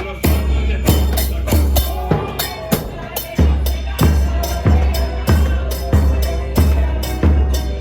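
Music with a strong, steady drum beat: a deep bass-drum hit a little under twice a second, with other instruments playing over it.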